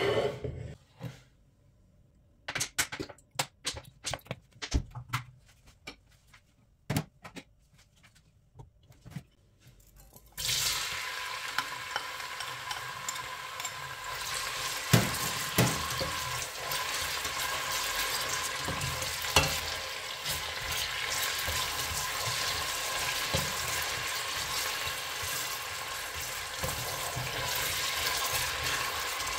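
Scattered knocks and clicks of a stainless steel pot being handled on the hob, then, about ten seconds in, a sudden steady sizzle as sliced onions start frying in the pot. The plastic slotted spatula stirring them taps and scrapes the pot now and then.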